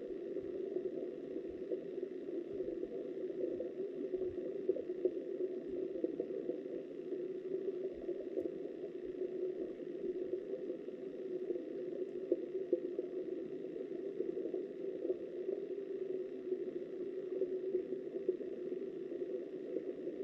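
Steady, muffled rush of flowing river water, heard through a camera submerged in the stream.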